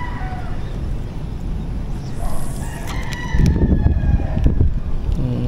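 A rooster crowing in the background. A burst of low rumbling on the microphone comes about three and a half seconds in.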